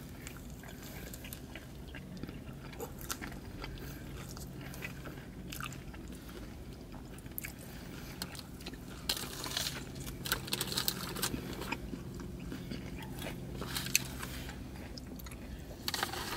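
A person chewing a mouthful of Hot Cheetos–coated mozzarella corn dog, with soft crunching that gets louder and busier about nine to eleven seconds in. A steady low hum runs underneath.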